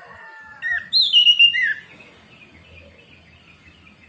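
Orange-headed thrush singing one loud, short phrase of gliding whistled notes about a second in, followed by faint twittering. The tail of a rooster's crow fades out at the start.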